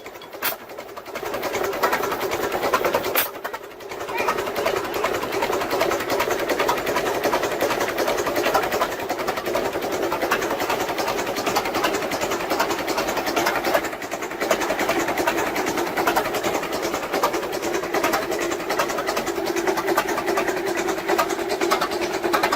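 An old machine running steadily with a fast, even mechanical clatter, dipping briefly a little after three seconds in.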